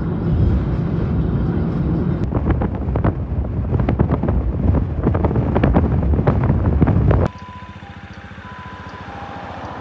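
Low rumble of a moving vehicle heard from inside, with a run of irregular rattling clicks over it. About seven seconds in it cuts off sharply to a quieter outdoor background with a few short beeping tones at two pitches.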